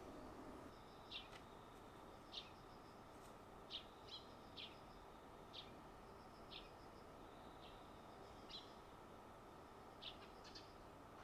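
Near silence with a bird chirping faintly and repeatedly, short falling chirps about once a second.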